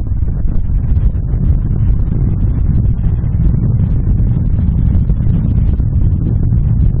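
Wind buffeting the microphone: a loud, steady, gusting low rumble.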